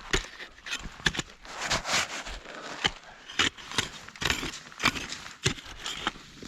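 Boots crunching and scraping through deep snow, about two steps a second, irregular, over a low rumble of wind on the microphone.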